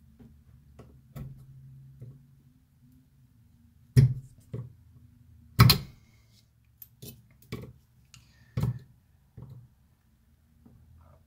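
A hand tool scoring and prying at the thin aluminium top seal of a Seagate BarraCuda Pro 10TB helium hard drive, cutting the seal open along its edge. There are about seven short, sharp scraping clicks, starting about four seconds in, with the loudest near the middle.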